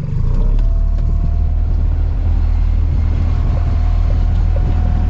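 Boat engine running steadily in gear with a low rumble and a faint steady whine.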